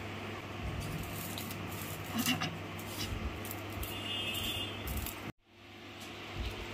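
Hands rubbing and working ghee into crumbly ground churma in a steel plate, with a few light metallic clinks over a steady low hum. The sound cuts out for a moment a little past five seconds in.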